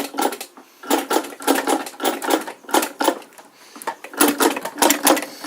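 Antique William Birch industrial chain stitch sewing machine running, its mechanism clattering in quick runs of clicks broken by short pauses.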